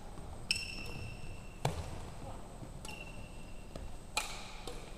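Badminton rackets hitting a shuttlecock back and forth in a rally: four sharp cracks about a second and a quarter apart, two of them followed by a brief ringing ping, echoing in a large hall.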